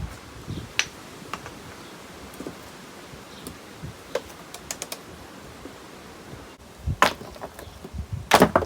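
Scattered light clicks and knocks of hand work at the dugout, with louder clusters of knocks about seven seconds in and again near the end.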